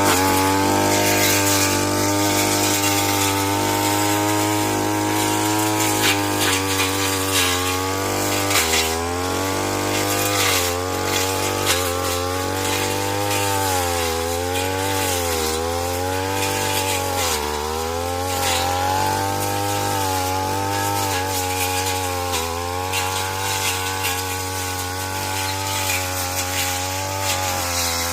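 Two-stroke brush cutter engine running at high speed, its pitch wavering and dipping repeatedly, then recovering.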